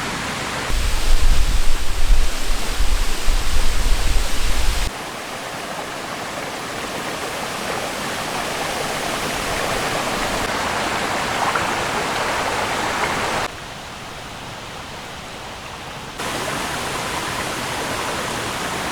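A small stream running, a steady rushing of water that jumps up and down in level a few times. For the first few seconds a loud low rumble lies under it.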